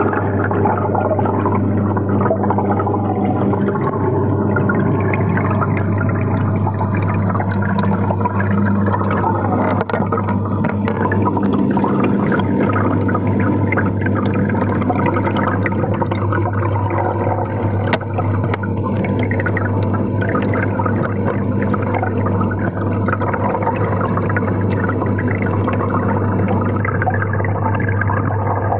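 Aquarium air bubbles streaming and gurgling, heard through a phone submerged in the tank, full of small crackles and pops over a constant low hum from the aquarium pump.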